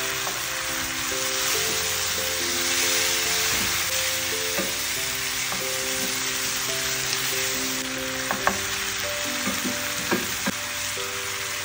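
Diced vegetables sizzling as they fry in oil in a cast-iron pan, stirred with a wooden spoon that knocks against the pan several times in the second half. Light background music plays underneath.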